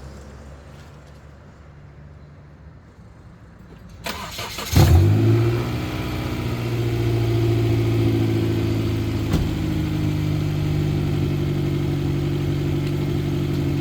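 Honda CR-V's four-cylinder engine being started: a brief burst of starter cranking about four seconds in, then it catches with a short rev flare, the loudest moment, and settles into a steady idle.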